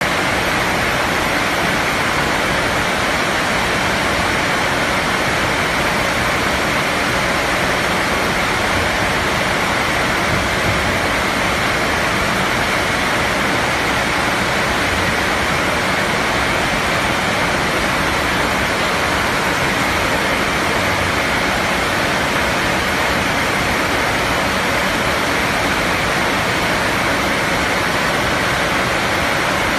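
Steady, unchanging rushing noise of running machinery, with no knocks, rhythm or changes in pace.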